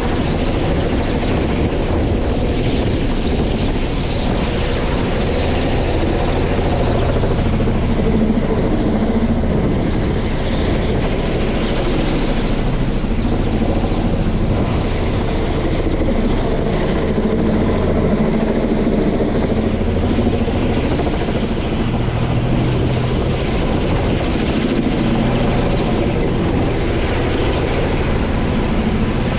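Kamov Ka-32 helicopter passing overhead: its two stacked, counter-rotating rotors and turbine engines make a steady low drone that swells and fades slightly every few seconds.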